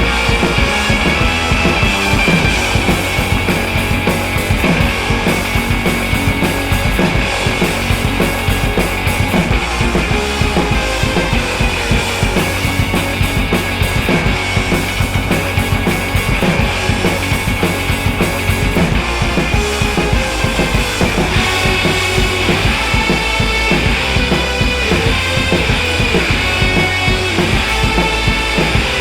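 Background rock music with a driving drum-kit beat.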